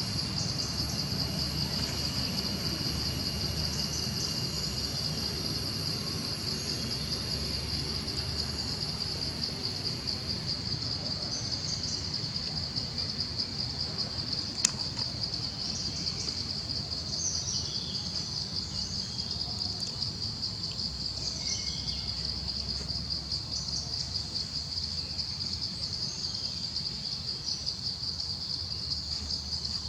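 A steady, high insect drone that pulses rapidly and evenly, with scattered short bird chirps over it in the second half. A single sharp click about halfway through.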